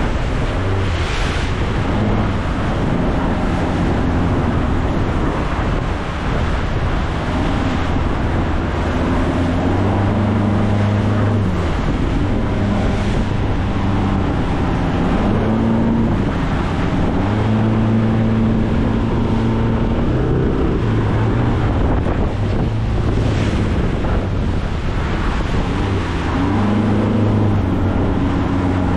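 Baysport 600 Offshore's outboard engine running under way through rough surf, its pitch rising and falling several times, over the rush of wind and water against the boat.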